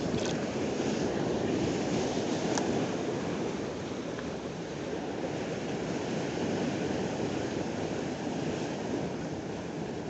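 Ocean surf breaking and washing over shoreline rocks in a steady rushing wash that swells a little in the first few seconds. A single sharp click sounds about two and a half seconds in.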